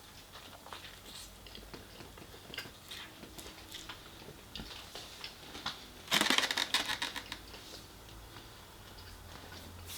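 Close-up eating of fried chicken: small wet chewing clicks, then a loud crunchy bite into the crispy coating about six seconds in, lasting over a second.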